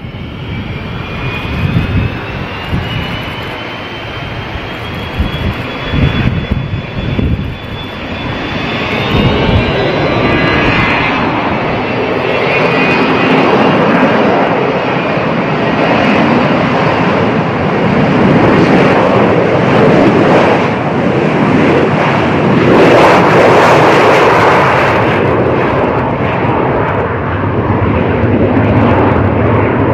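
McDonnell Douglas MD-83's two rear-mounted Pratt & Whitney JT8D turbofans spooling up for takeoff. A whine rises steadily in pitch over the first several seconds while the jet noise swells, then the engines run loud and steady at takeoff power as the airliner rolls down the runway.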